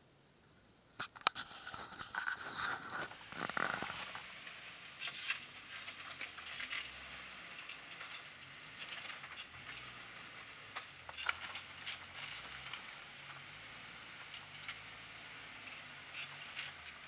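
Rock-crawler buggy clambering over boulders: rocks clinking, knocking and scraping under its tyres and chassis, starting with a sharp knock about a second in, its engine faint and low underneath.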